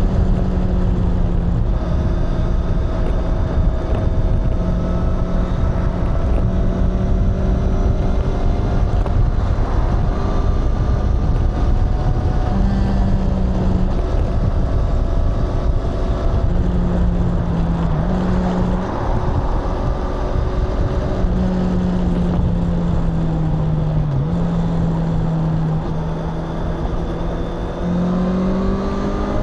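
Honda CBR650R E-Clutch's inline-four engine and exhaust running continuously at a fairly steady engine speed. The drone's pitch dips and climbs slightly a few times and rises near the end, over a heavy low rumble.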